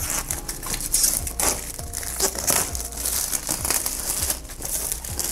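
Thin clear plastic shrink-wrap crinkling and crackling in irregular bursts as it is peeled and pulled off a cardboard smartphone box by hand.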